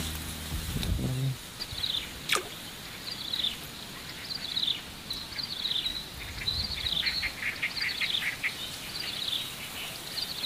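Small birds chirping in repeated short, high-pitched series. The tail of background music ends about a second in, and a single quick downward swoosh sounds about two seconds in.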